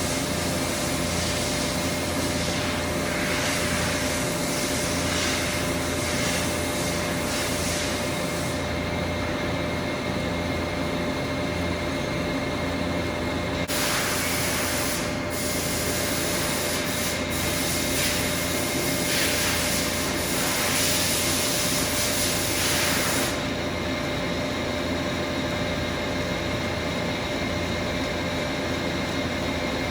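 TAKISAWA TAC950 CNC lathe boring the inside of a hardened SKD61 die-steel (HRC50) workpiece with an anti-vibration boring bar: a steady machine hum with a constant high tone and a hiss of cutting. The hiss fades about eight seconds in, comes back near fourteen seconds, and fades again near twenty-three seconds.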